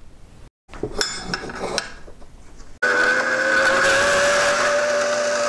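Handheld WEN electric cutting tool cutting 4130 chromoly steel square tubing: its motor starts suddenly about three seconds in and runs steadily, with a whine whose pitch rises slightly. Before that come a few light metallic clinks.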